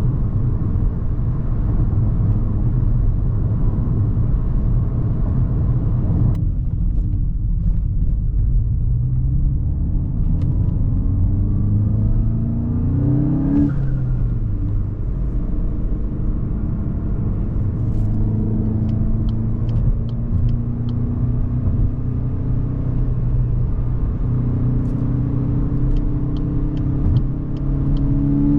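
Volkswagen Golf GTI Mk8's turbocharged four-cylinder engine under way, pitch climbing under acceleration for several seconds before dropping sharply about halfway through, then running steadier with another slow climb near the end. Two runs of quick, evenly spaced light ticks sound in the second half.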